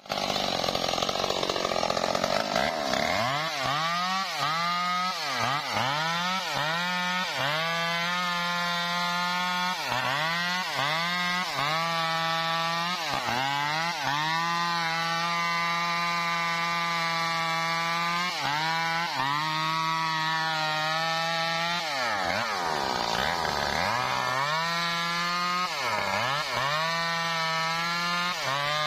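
A Stihl MS 382 two-stroke chainsaw cutting into a mahogany trunk at high speed. Its engine note dips and recovers many times, with one deep sag about two thirds of the way through, between steady stretches at full speed.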